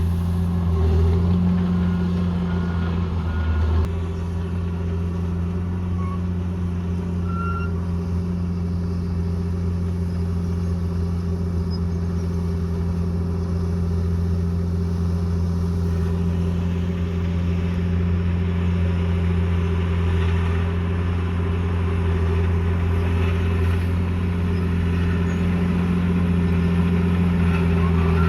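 Bulldozer's diesel engine running steadily at a constant speed, with a small drop in loudness about four seconds in.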